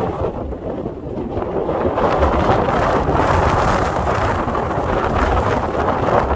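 Blizzard wind blowing hard and buffeting the microphone, a loud, continuous rushing roar with deep rumbling gusts that grows louder about two seconds in.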